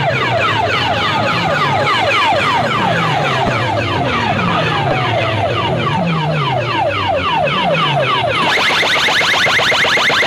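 A DJ sound-box system loudly playing an electronic siren effect: rapid, repeated falling sweeps, about three a second. About eight seconds in it switches to a brighter, faster sweep pattern.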